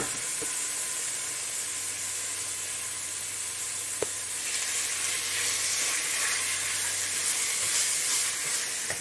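Grated red onion and browned meat sizzling in hot fat in a pot, stirred with a wooden spoon. A sharp knock comes at the start and another about four seconds in, and the sizzle grows louder after the second knock.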